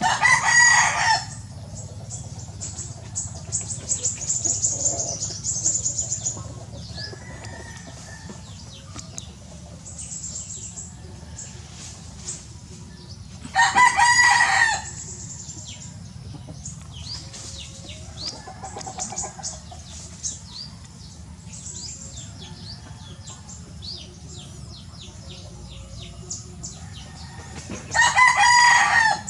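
A rooster crowing three times, about fourteen seconds apart, each crow a little over a second long and the loudest sound present. Between the crows, small birds make many short, high chirps.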